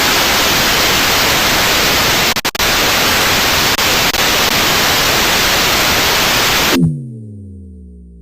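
Loud burst of white-noise static with a couple of brief dropouts about two and a half seconds in, cut off abruptly near the end. A low humming tone follows, sliding down in pitch and fading out.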